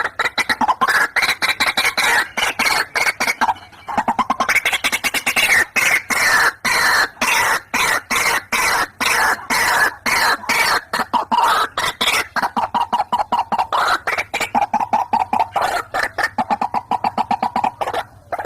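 White-breasted waterhens calling: a long run of rapidly repeated 'ruak-ruak' notes, several a second, used as a lure call.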